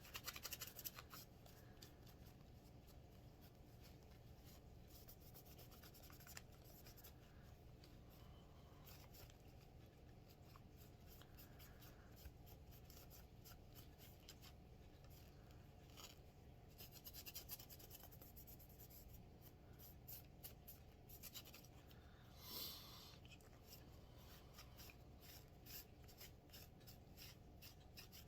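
Faint rubbing of a cloth rag over a revolver's metal as it is wiped and polished, with scattered small scratches and clicks.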